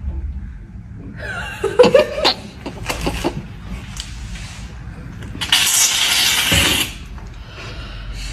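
Aerosol can of whipped cream spraying with one loud hiss lasting about a second and a half, a little past halfway, then cutting off. Earlier, brief bursts of laughing and squealing voices.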